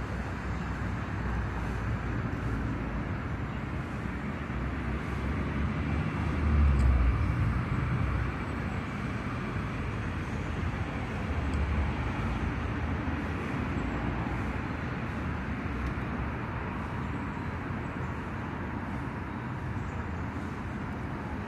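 Steady outdoor background noise with a low rumble, swelling louder about a third of the way in and again briefly near the middle.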